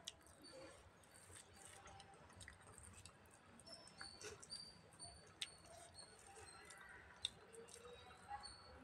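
Faint eating sounds: curd rice chewed with the mouth full and scooped by hand from a steel bowl, with scattered wet mouth clicks and short high squeaks. Two sharper clicks stand out, about five and seven seconds in.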